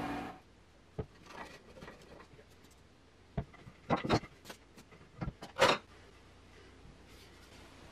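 A strip sander's run cuts off at the very start. Then pine boards and a small wooden part are handled and set down on a workbench: about six scattered knocks and taps of wood, the loudest about two-thirds in.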